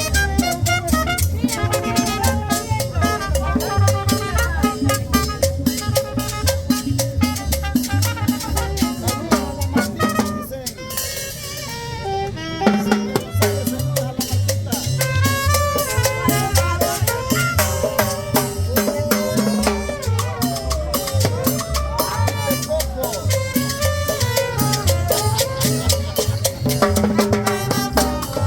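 Tropical Latin dance music with a steady bass and percussion beat and melody over it; the bass and drums drop out for about two seconds near the middle, then come back in.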